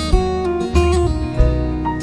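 Background music led by a guitar, with plucked notes changing every fraction of a second.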